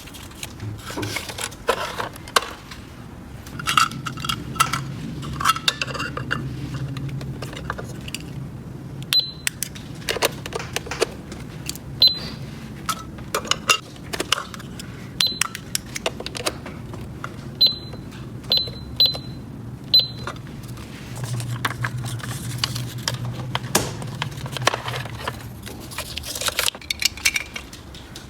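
Small hard toy pieces being handled and set down: a continuous run of clicks and clatters, with several short bright clinks in the middle stretch.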